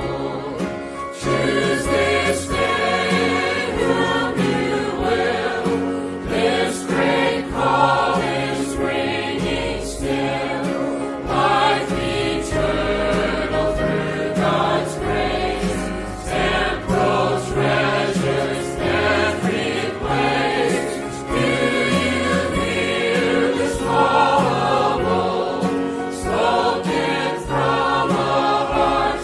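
Church choir singing a gospel song in several voices, with band accompaniment keeping a steady beat.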